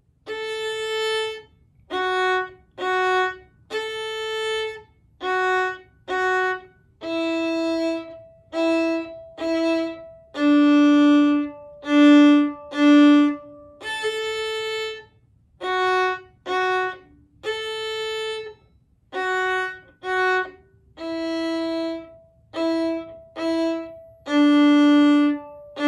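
Solo violin playing an old-time fiddle tune slowly, note by note: separate bowed notes, each held about half a second to a second with short breaks between, moving between open A and fingered notes on the D string.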